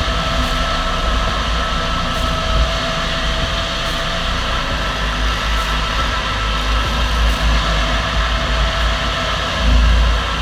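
Heavy land-clearing machinery running steadily: an engine under a continuous low rumble with a steady whine.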